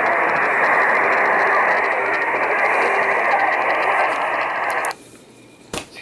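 Steady static hiss from a Sangean HD Radio receiver's speaker, cutting off abruptly about five seconds in, followed by a single sharp knock.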